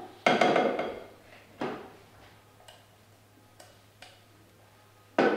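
Metal spoon knocking against a steel saucepan while stirring risotto: a sharp ringing clank about a third of a second in, a second knock a little over a second later, a few light ticks, and another loud knock near the end.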